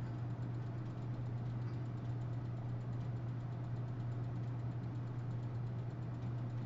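Steady low hum, unchanging in pitch and level.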